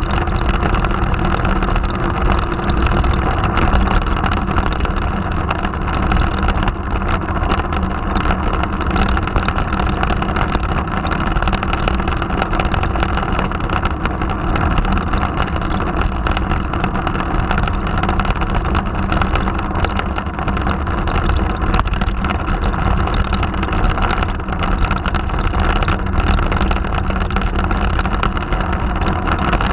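Motorcycle engine running steadily at cruising speed on the open road, with wind and road noise.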